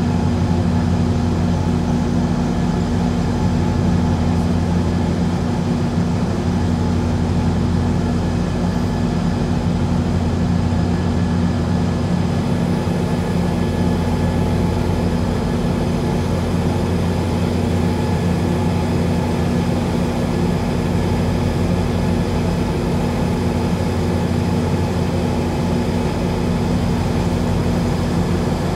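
Towboat diesel engines running steadily at idle: a loud, even low hum with several steady tones and no change throughout.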